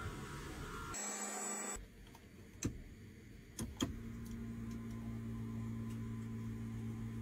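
Electric seat-adjustment motor of a GAC Trumpchi ES9 running with a steady low hum as the seat switch is held. It starts about four seconds in, after a few sharp clicks, and cuts off at the end.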